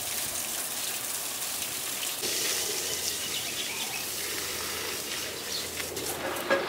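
Outdoor garden ambience: a steady hiss with a few faint bird chirps here and there.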